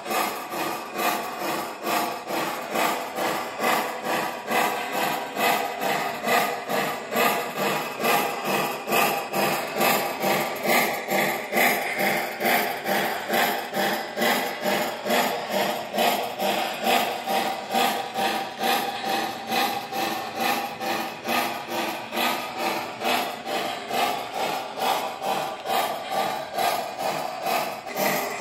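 O-scale model steam locomotive's onboard sound system playing a steady steam chuff, evenly paced at about two to three chuffs a second as the locomotive runs.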